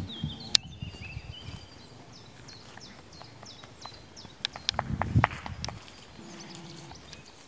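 Small birds singing with many short, high, falling chirps. Around five seconds in there is a cluster of knocks and low rumbling noise from a horse moving close by at the fence.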